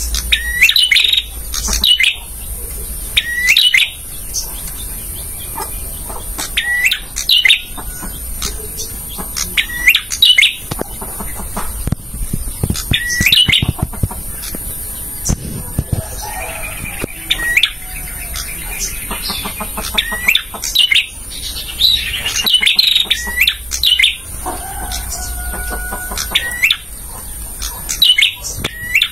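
Male prenjak (prinia) singing: loud, short, sharp chirps repeated every one to three seconds, with other birds calling in between.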